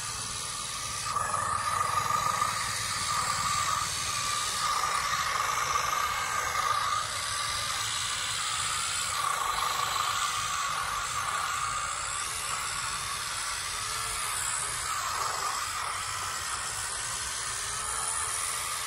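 Radio-controlled scale model tractor working in loose soil: a steady mid-pitched whine from its drive, which gets louder about a second in and wavers as the tractor speeds up and slows, over a hiss.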